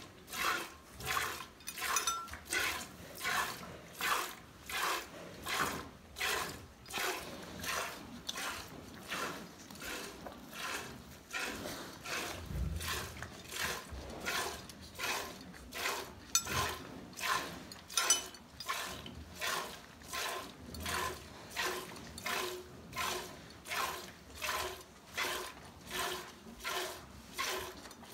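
Hand-milking a Jersey cow with a pinch-and-slide stroke: squirts of milk hitting a small stainless steel pail in a steady rhythm, about three squirts every two seconds.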